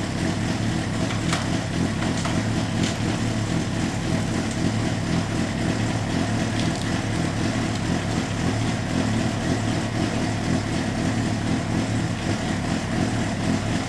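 Honda CBR600RR's inline-four engine idling steadily in first gear, with the rear wheel turning freely on the stand.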